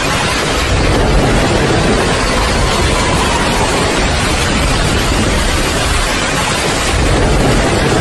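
Heavy rain falling steadily: a dense, even hiss with a deep low rumble underneath and no distinct drops or events.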